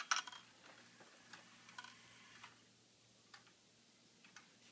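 German grandfather clock movement ticking faintly, light separate ticks roughly once a second, after a sharp clack right at the start.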